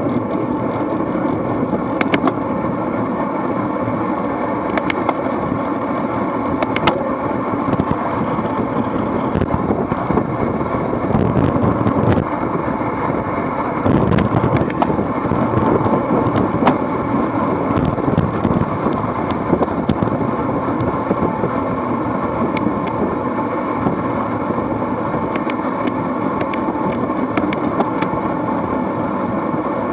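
Wind rushing over an action camera's microphone on a racing road bike, mixed with tyre and road noise from the bunch of riders. It runs steadily, a little louder around the middle at the fastest speed, with scattered sharp clicks.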